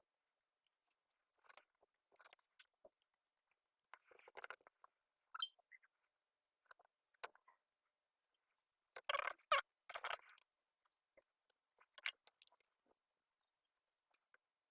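Intermittent small clicks, scrapes and rustles of hands handling tools and a circuit board at a workbench, loudest in a short cluster a little past the middle.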